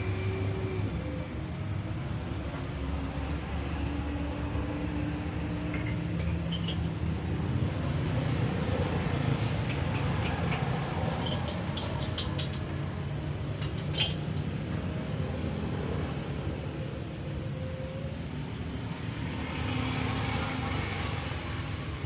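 Steady low motor rumble with short shifting tones, and a few faint clicks around the middle.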